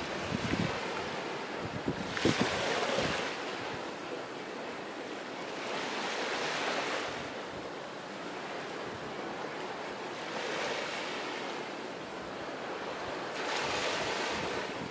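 Small sea waves breaking and washing up on a sandy beach, one swell of surf about every four seconds. Wind buffets the microphone with low thumps in the first few seconds.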